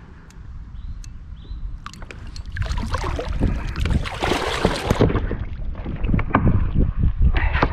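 A hooked lesser guitarfish thrashing and splashing at the water's surface beside a kayak, loudest for about two seconds a third of the way in. Then a run of sharp knocks and bumps as the fish is lifted by its tail onto the plastic hull.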